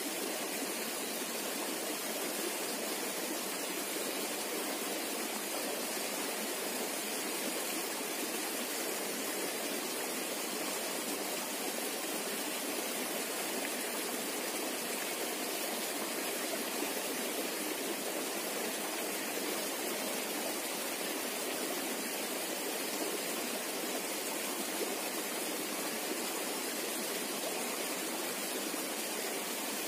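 Small ditch stream of shallow water running steadily over rocks, a continuous babbling rush.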